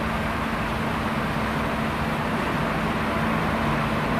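1988 Okuma MC-4VA vertical machining center running: a steady mechanical hum with a low, even tone under a wash of noise.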